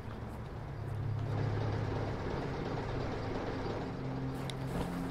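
A vehicle engine idling steadily as a low hum, getting louder about a second in, with a few faint clicks near the end.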